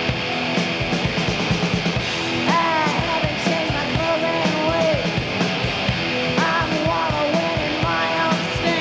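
Grunge band playing live: distorted electric guitars and pounding drums, with a woman's sung vocal coming in about two and a half seconds in and returning in short phrases.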